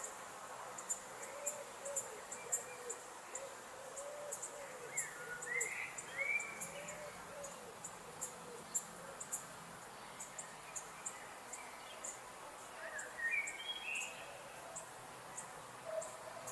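Nature ambience: insects chirping in short, high, evenly repeated pulses, with a run of low hooting calls through the first half and short bird calls twice, about five seconds in and near thirteen seconds.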